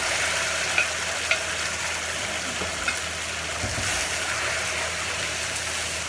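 Fresh rice noodles sizzling as they are stir-fried in a hot wok with a wooden spatula, with a few sharp clicks in the first three seconds.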